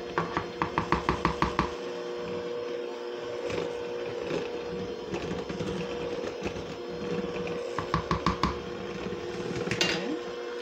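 Electric hand mixer beating cake batter on low speed, its motor humming steadily. Spells of rapid clicking, about five a second, come in the first two seconds and again around eight seconds in.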